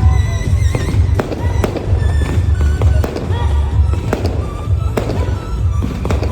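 Fireworks going off in a string of sharp bangs and crackles, over loud music with a heavy bass.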